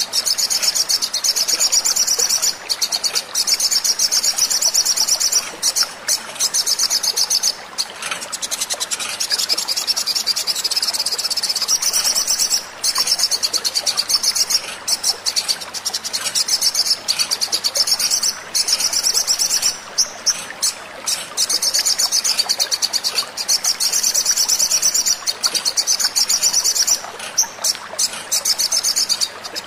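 Olive-backed sunbird (sogon) singing: long runs of very rapid, high-pitched repeated notes, broken by brief pauses.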